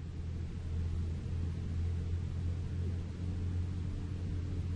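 Steady low engine and road rumble heard from inside the cab of a moving vehicle, with a faint higher hum joining near the end.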